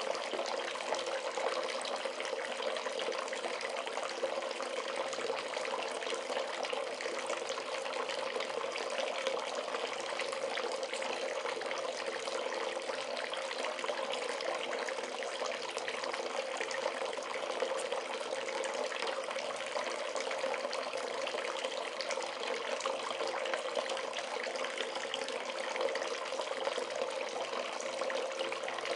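Bath tap running steadily into a filling bathtub, water splashing continuously with no change in flow.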